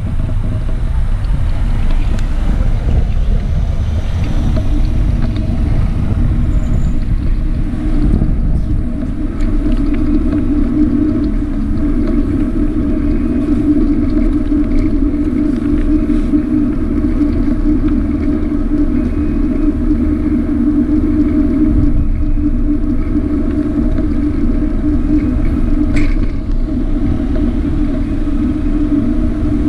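Vehicle driving steadily along a city street: a constant low rumble of road and wind noise with a steady droning tone that grows stronger a few seconds in.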